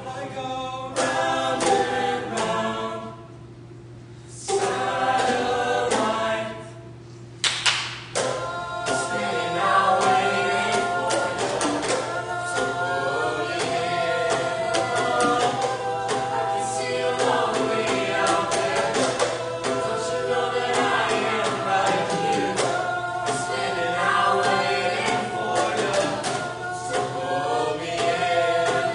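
A vocal ensemble singing together in harmony, with sharp percussive hits through the music. The sound drops out briefly twice in the first eight seconds, and a sharp hit ends the second break.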